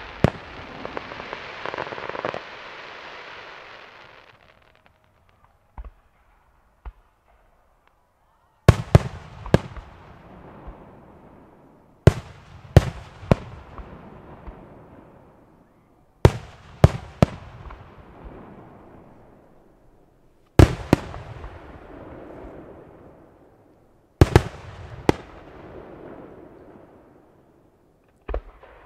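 Fireworks display: aerial shells going off in groups of two or three sharp bangs about every four seconds, each group trailing off in a rolling echo. A crackling hiss fades out over the first few seconds, and two small pops come before the first group.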